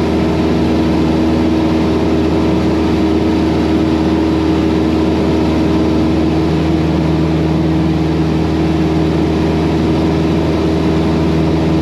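Cessna 172's piston engine and propeller droning steadily in cruise, heard as cabin noise through the pilot's headset; about halfway through a second low hum joins in.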